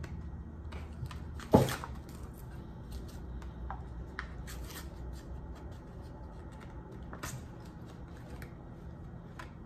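Plastic blind-bag toy package crinkling and rustling as it is worked open by hand, with one sudden sharp snap or rip about a second and a half in.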